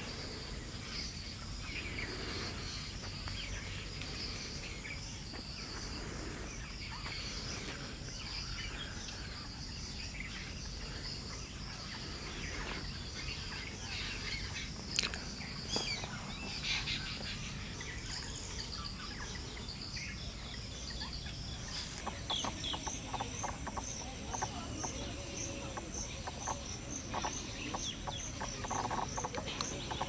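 Natural ambience of insects and birds: a steady high insect buzz with scattered faint bird calls. From about two-thirds of the way in, a regular high insect chirping repeats about twice a second.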